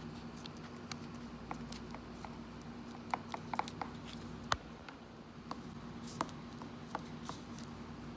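Handling noise from a Bose QuietComfort 35 headphone earcup being pressed and turned in the fingers: scattered light clicks and rubs of fingertips on the plastic rim and fabric grille. A cluster of clicks comes a little past the middle, and the sharpest a moment later. A steady low hum runs underneath.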